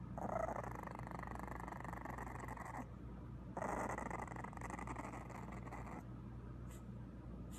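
English bulldog puppy growling quietly: two long, rough growls, each a couple of seconds long, with a short pause between them.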